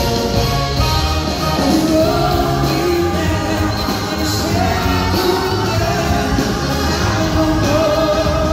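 Live rock band playing, with a woman singing lead over electric guitar and drums, heard from the audience.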